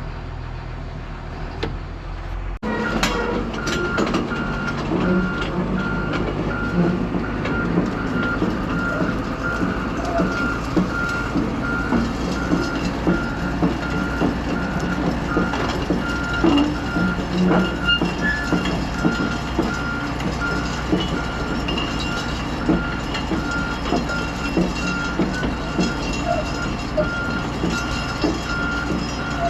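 John Deere 210G excavator tracking along, its travel alarm beeping regularly over the running diesel engine, with clanks and knocks from the tracks and machine. The beeping starts about two and a half seconds in.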